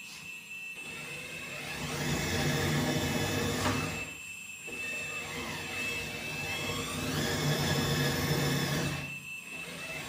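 Kabolite 970 hydraulic RC excavator driving on its tracks: the hydraulic pump and track drive whine, with the tracks running along. It drives one way, stops briefly about four seconds in, then drives back, and the whine rises and falls in pitch with each run.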